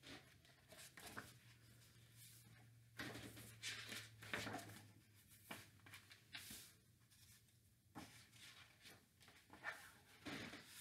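Faint rustling and handling of a hardcover picture book as its paper pages are turned, in several soft, irregular bursts.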